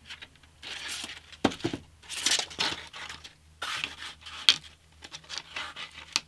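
Paper-backed aluminium oxide sandpaper strip rustling and scraping in several bursts as it is slid along a cutting mat and a steel rule is moved across it, with a couple of sharp knocks.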